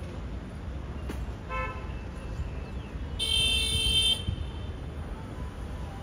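A vehicle horn sounds once, a steady honk of about a second near the middle, over a constant low rumble. A much shorter beep comes a little before it.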